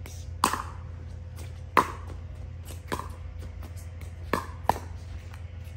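Pickleball paddles striking a plastic pickleball in a rally: five sharp hollow pops, roughly one every second and a half, with two coming close together near the end.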